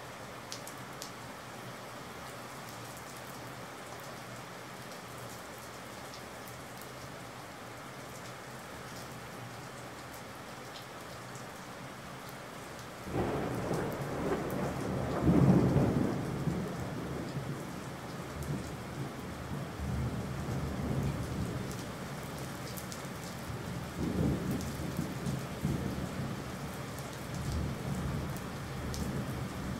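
Steady rain falling, then about 13 seconds in a thunderclap breaks in suddenly and rolls on as a deep rumble, loudest a couple of seconds after it starts and swelling again several times before the end.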